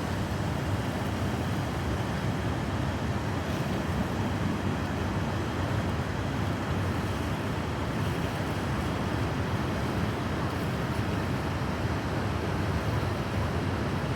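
The Rhine Falls, a large waterfall, rushing in a steady, unbroken noise that is heaviest in the low range.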